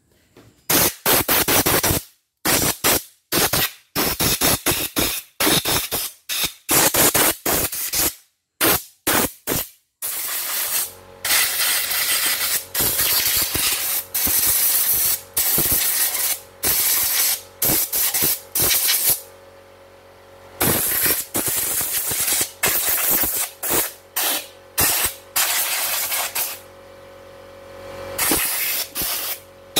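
Handheld compressed-air gun blasting into the opened CNY E900 embroidery machine to clear out the dirt that made its touch screen unresponsive. It fires many short hissing bursts at first, then longer, almost unbroken blasts from about a third of the way in, with a steady hum underneath.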